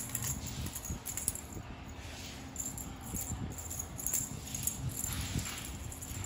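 A cat wand toy rattling and jingling in irregular bursts as it is dragged and batted across a tile floor during a kitten's play.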